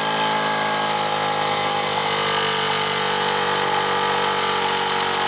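Steamco STC01 toy steam engine running at high speed: a steady whirring hum over a hiss of escaping steam, the pitch easing down slightly over a few seconds.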